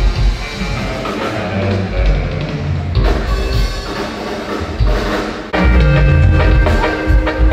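Live dance band playing, with drum kit, bass and guitar carrying a steady beat; the music gets abruptly louder about five and a half seconds in.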